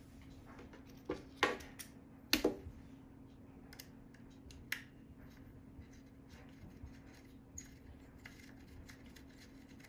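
Small metal clicks and clinks of a hex driver and screw being worked into a large-scale RC car's metal brake plate: a few sharp clicks in the first five seconds, then only faint ticks over a low steady hum.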